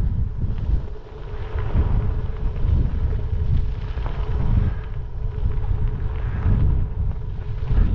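Wind buffeting the microphone in uneven gusts, with the steady rolling noise of a gravel bike's tyres on a gravel road at speed.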